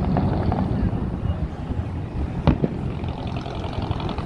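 A sharp firework bang, a quick double crack, about two and a half seconds in, over a steady low rumble of wind on the microphone.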